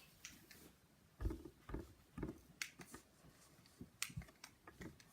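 Faint, scattered taps and clicks with a few soft handling bumps, from fingers typing a text message on a smartphone.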